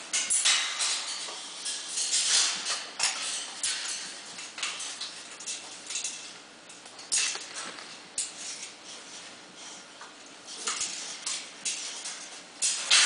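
Adult boxer and boxer puppy play-wrestling on a futon comforter: irregular bursts of rustling bedding mixed with the dogs' breathy mouthing noises, loudest just before the end.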